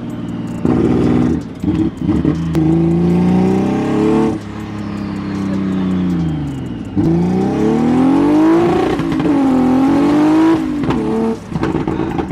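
Turbocharged BMW E46 M3 drift car's engine, heard from inside the cabin while driving. It rises in pitch under throttle, drops about four seconds in and falls away as the car coasts, then climbs twice more before dropping again near the end.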